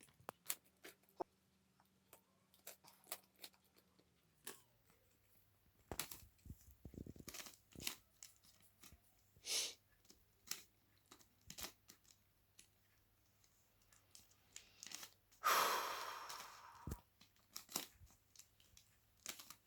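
Plastic twisty puzzle being turned by hand: faint, irregular quick clicks and clacks as its layers are rotated, with one longer burst of noise about fifteen and a half seconds in.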